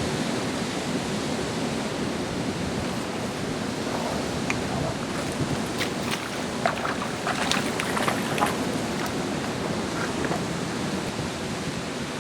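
Steady rushing of river water over boulders, mixed with wind on the microphone, with a scatter of short, sharp clicks between about four and nine seconds in.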